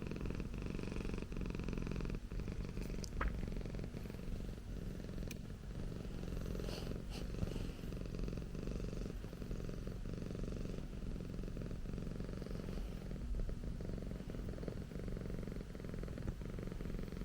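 Persian cat purring steadily, a continuous low purr of rapid pulses, with a few faint clicks in the first half.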